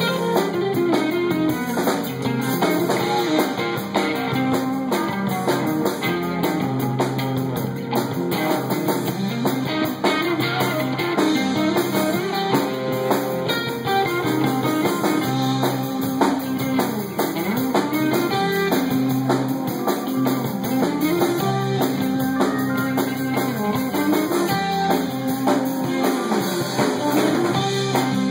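A live band playing: electric guitar over a drum kit, with sustained notes that bend up and down.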